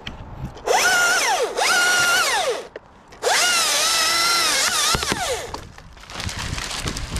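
Chainsaw run up in three bursts, its pitch rising steeply at each start and falling away as the throttle is released; the third burst is the longest, and its pitch wavers.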